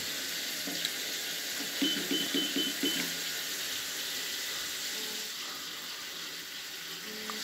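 Electric shower running, its water spray a steady hiss. About two seconds in comes a quick run of short high beeps as the temperature setting is stepped down on the control panel.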